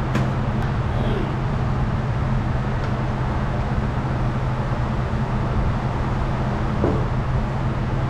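A steady low mechanical hum over a background of machine and traffic-like noise, with a couple of faint clicks about a second in.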